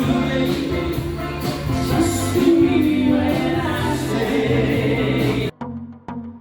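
Background music with singing, which cuts off abruptly near the end and gives way to a sparser track with a regular beat about twice a second.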